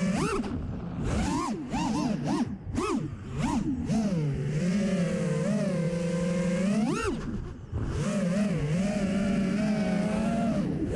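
FPV quadcopter's brushless motors and propellers whining, the pitch swooping up and down quickly with the throttle for the first few seconds, then holding steadier, with a short drop about three-quarters of the way through.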